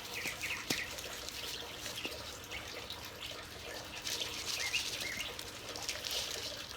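Small birds chirping, a few short chirps near the start and again about two-thirds of the way in, over a faint rustling haze.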